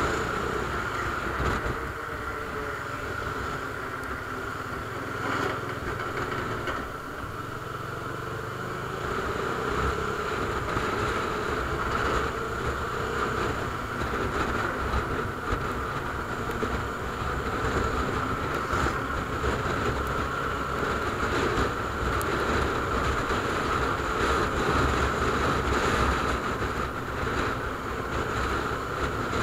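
Bajaj Dominar 400's single-cylinder engine running steadily at cruising speed, heard from the bike itself and mixed with wind and tyre noise.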